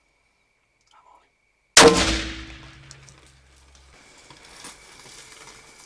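A single shot from a Smith & Wesson Performance Center 460 XVR revolver in .460 S&W Magnum: one sharp, very loud crack a little under two seconds in that rings and echoes away over the next second or so.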